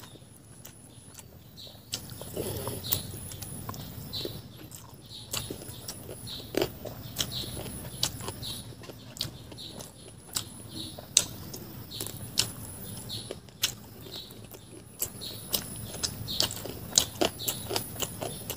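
Close-miked chewing of a mouthful of fried rice and chicken, with many sharp, irregular wet mouth clicks and smacks.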